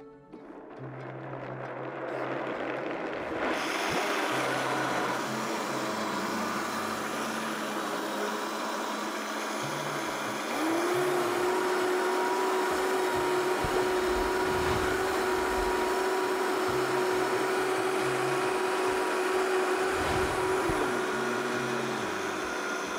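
High-speed blender starting up and running at full speed, blending cashews with water and seasonings into a smooth cheese sauce. The motor climbs to speed over the first few seconds, steps up a little louder about ten seconds in, and carries a steady whining tone from then until a couple of seconds before the end.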